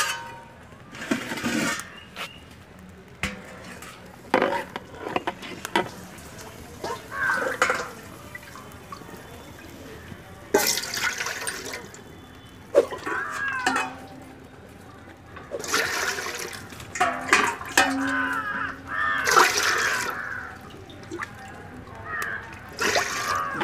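Water splashing and pouring in irregular bursts every few seconds.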